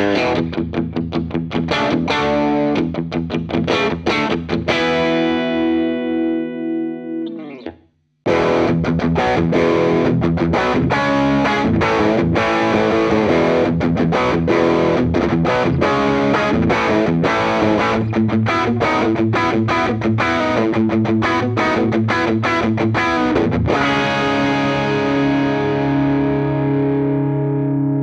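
Electric guitar through a Maxon OD-808 overdrive pedal, switched on. A Stratocaster-style guitar plays overdriven notes and chords and ends on a ringing chord whose pitch slides down. After a short break about eight seconds in, a Les Paul-style guitar plays a fast, busy overdriven riff and ends on a chord left to ring out.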